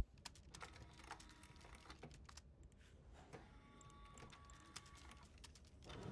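Faint, irregular light clicking of keyboard typing, with a faint steady whine midway through. A single sharp click at the very start is the loudest sound.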